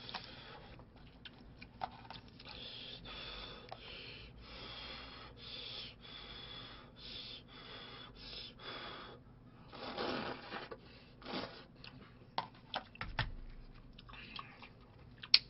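Close-up eating sounds: a man slurping and chewing noodles from budae-jjigae (Korean army stew), in short hissy bursts several times a second. A few sharp clicks come near the end.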